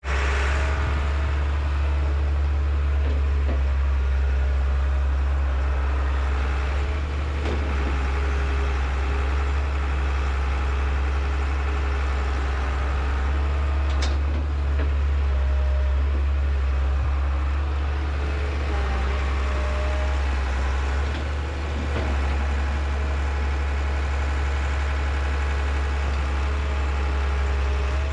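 Excavator's diesel engine running steadily, a deep, even rumble with no change in pace.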